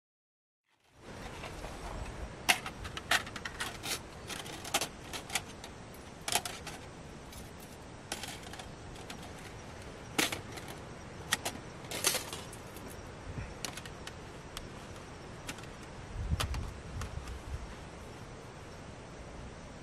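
Light metal clicks and clatters from a folding metal camp frame being unfolded and handled, a dozen or so sharp, separate clinks starting about a second in. A short low rumble comes near the end.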